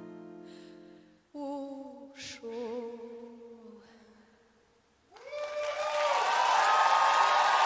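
Acoustic guitar notes fading out, then a woman singing an unaccompanied closing folk phrase with a held, wavering note. After a short pause about five seconds in, a rising wash of audience applause and cheering, the loudest part.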